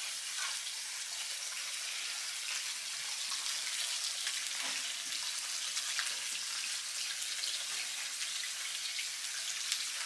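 Head-on shrimp sizzling on a charcoal grill grate: a steady hiss dotted with small crackling pops.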